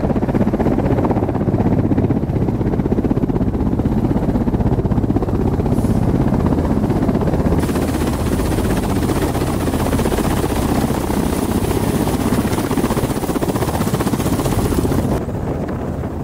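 Ka-52 attack helicopter running close by as it hovers in to land: a loud, steady, fast chop from its coaxial rotors over the turbine noise. A little past halfway, a high hiss comes up stronger.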